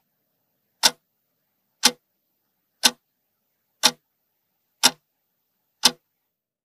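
Clock-tick sound effect marking a quiz countdown timer: single sharp ticks, evenly spaced once a second, with dead silence between them.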